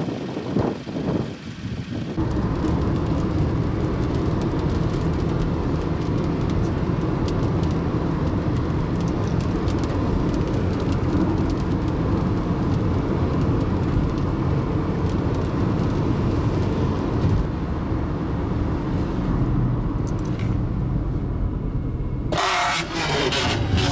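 Car being driven, with steady engine and road noise heard from inside the cabin. Near the end it switches abruptly to a louder, hissier sound.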